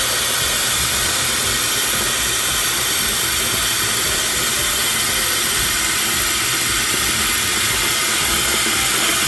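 Tap water running steadily from a sink faucet into a plastic zip-lock bag as it fills.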